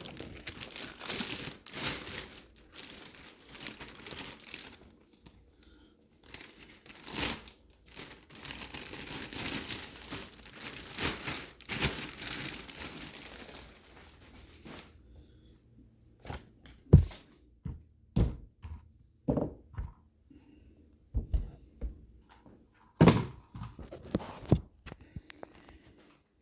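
Packaging crinkling and rustling for about the first fourteen seconds as a new rifle is unwrapped and lifted out, then a string of about ten separate sharp clacks and knocks as it is handled.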